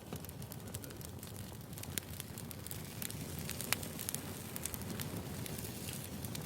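Wood fire burning, crackling with frequent sharp pops and snaps over a low steady rumble of flames.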